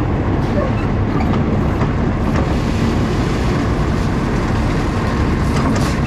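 Feed truck running steadily with a low rumble as feed is let out of the feeder.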